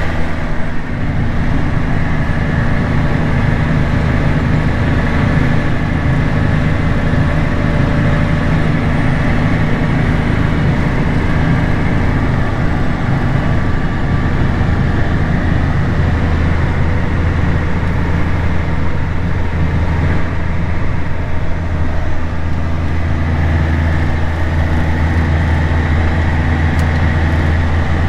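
Tractor engine running steadily: a loud, even low drone heard from inside the cab.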